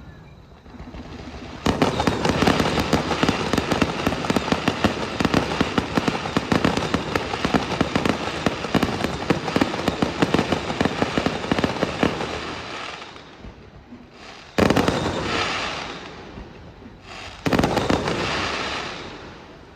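Aerial fireworks shells going off in a rapid barrage of bangs and dense crackling for about ten seconds, fading out. Two more single loud bursts follow, each trailing off.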